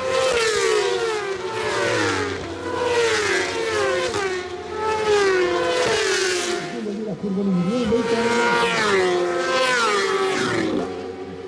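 Racing motorcycles passing at speed on a circuit straight, one after another, each engine's note falling in pitch as it goes by.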